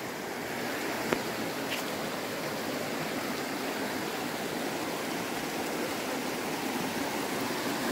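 Shallow mountain creek running over rocks and small rapids: a steady rush of water, a little louder near the end.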